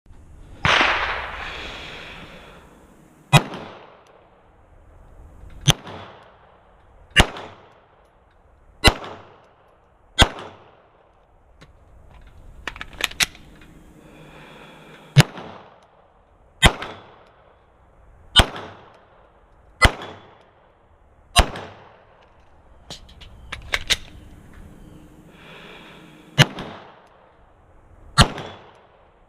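Glock 34 Gen 5 9mm pistol firing single shots at a slow, steady pace, about one every one and a half seconds, with a couple of quick doubles. Each sharp crack has a short fading tail.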